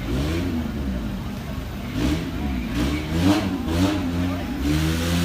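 Off-road 4x4's engine revving up and down several times, then holding a steady note near the end.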